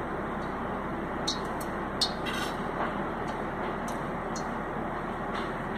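A steady background rushing noise, with a few light clicks and rustles from fingers handling a thin pastry sheet over filling on a plate.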